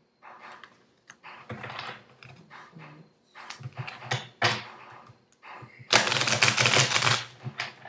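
A deck of tarot cards being shuffled by hand: scattered card flicks and slaps, then a dense run of rapid clicking about six seconds in, lasting about a second, the loudest part.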